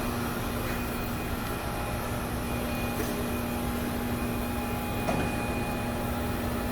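Steady hum of shop machinery, with a couple of faint knocks about three and five seconds in.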